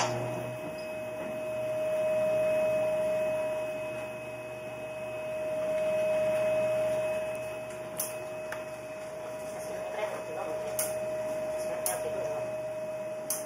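A steady, even-pitched hum of ship's machinery under the rush of the churning wake and seas, which swells and fades twice. A few sharp knocks come in the second half.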